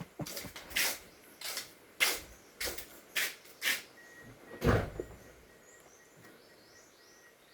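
A run of sharp clicks and clunks, about one every half second, the last a heavier knock, then from about four seconds a faint, steady high-pitched electronic tone.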